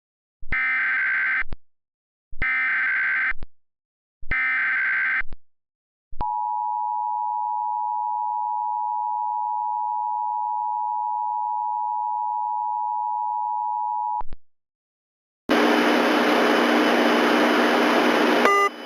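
Emergency Alert System tones: three roughly one-second bursts of SAME header data, then the two-tone attention signal held steady for about eight seconds. After a short gap comes about three seconds of loud hissing noise with a hum in it, and short beeps right at the end.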